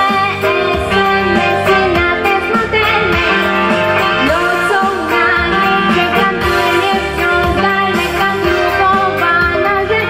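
A young girl singing a pop song into a microphone over a recorded backing track with guitar, heard through a stage PA.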